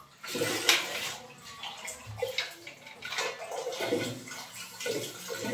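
Water from a shower hose, its head removed, spraying into the enamel-lined tank of an electric storage water heater through the heating-element opening and splashing inside, the splashing coming and going unevenly.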